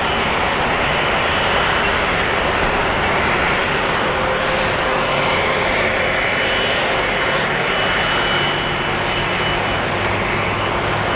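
Airbus A330-300 airliner's jet engines running steadily at idle while it is under tow: a dense, even roar with a thin high whine held over it.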